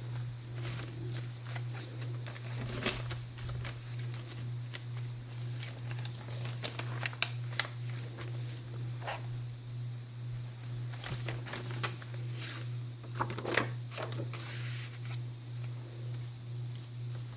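Pages of a handmade paper journal being turned and handled: paper rustling and crinkling with scattered light clicks and taps, over a steady low hum.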